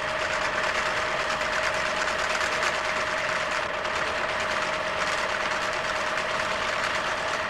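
Electric sewing machine running at speed, stitching fabric: a steady motor whine over a fast, even clatter of the needle mechanism.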